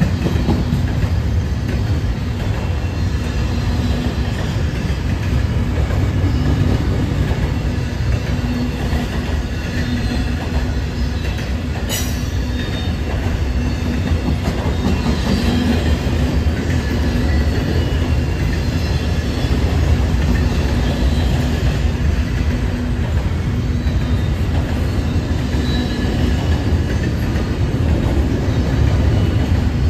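Double-stack intermodal freight train rolling past at a steady pace: a continuous rumble of steel wheels on rail with an on-and-off faint squeal. A single sharp click comes about twelve seconds in.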